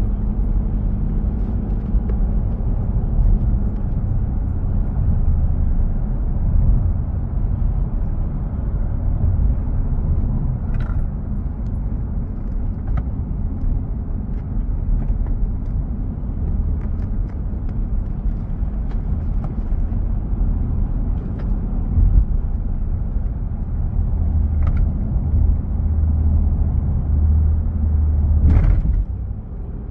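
Steady low rumble of a moving car, with a few faint clicks and a brief louder noise near the end.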